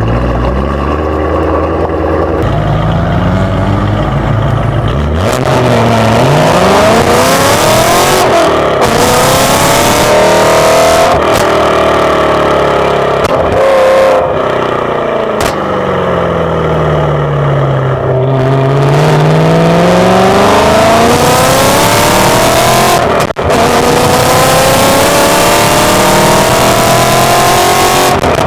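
Ford Crown Victoria's V8 running: low and steady at first, then about five seconds in it starts revving, its pitch climbing and falling several times and rising in one long climb near the end.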